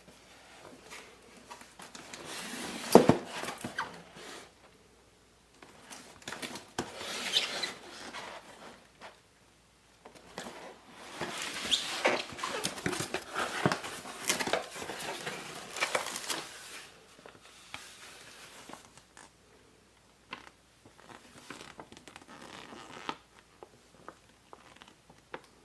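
Cardboard fan box and its packaging being handled: bursts of rustling and scraping with scattered knocks, the loudest a sharp knock about three seconds in.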